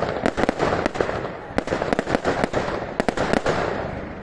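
Fireworks display: a rapid volley of sharp bangs and crackles over a continuous rumbling haze, thinning out and fading away near the end.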